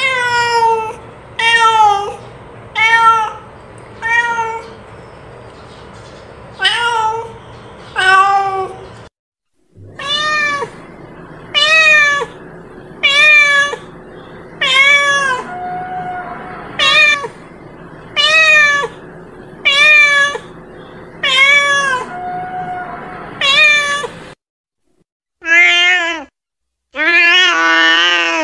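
Domestic cat meowing over and over, one short meow about every second or second and a half, with a couple of brief breaks; near the end come two longer meows, the last one drawn out.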